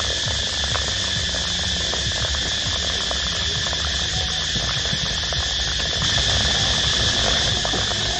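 Steady, unbroken chorus of insects such as crickets or cicadas, a shrill high buzz, over a low uneven rumble.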